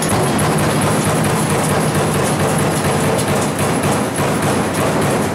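Amada Vipros 358 King II hydraulic CNC turret punch press punching a test grid: a fast, continuous clatter of punch strokes as the sheet is indexed between hits, run to check how tight the ball screws are.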